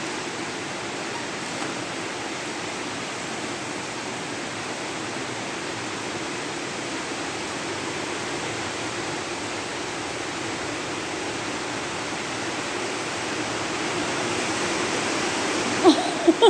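Heavy rain pouring down, a steady dense hiss that grows a little louder over the last few seconds. A few short sharp sounds come just before the end.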